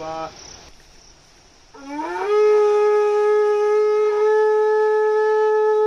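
A conch shell blown in one long, loud note, starting about two seconds in, sliding up in pitch over half a second and then held steady, as a shrine ritual.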